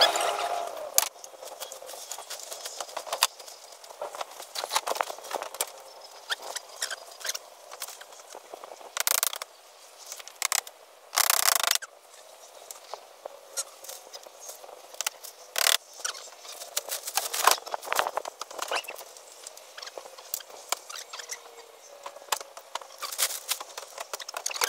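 Roof work on a tarpaulin-covered barn roof: scattered light knocks, taps and scrapes as the tarp and wooden battens are handled, with two longer rustling noises near 9 and 11 seconds in.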